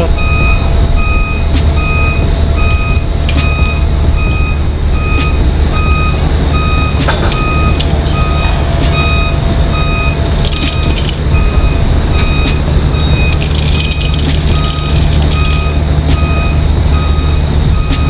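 Heavy-machinery warning alarm beeping steadily, about twice a second, over the continuous low drone of machinery running, with a few brief clanks.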